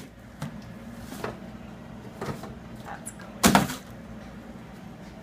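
Knocks and clunks of containers being handled in an office refrigerator, about five of them, the loudest about three and a half seconds in, over a steady low hum.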